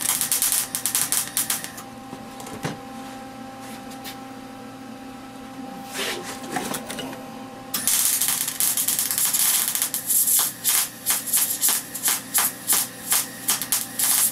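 MIG welder arc crackling and spitting as it lays a weld with CO2/argon shielding gas, throwing spatter. It crackles densely, stops about two seconds in, and starts again about eight seconds in with a fast pulsing crackle, over a steady hum.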